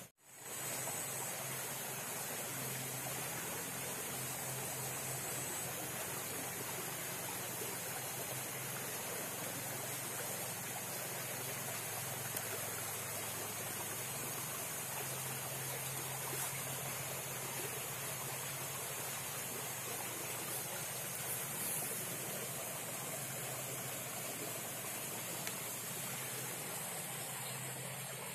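Steady, even rushing noise of flowing creek water, with a faint low hum underneath.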